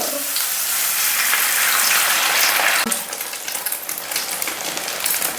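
Egg batter frying in hot mustard oil in a pan, sizzling with a steady hiss that eases a little after about three seconds, with faint crackles.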